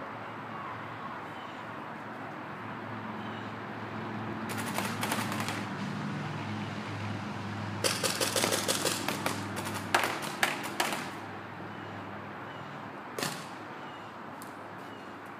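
Paintball markers firing: a short burst of rapid shots about four and a half seconds in, a longer run of quick shots from about eight to eleven seconds, and one more shot a couple of seconds later.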